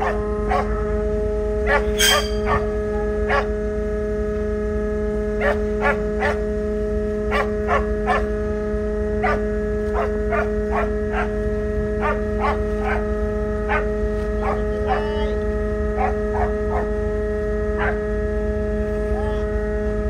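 A small dog barking in short, repeated yaps, over the steady hum of the ferry's engines running during docking. A single sharp click sounds about two seconds in.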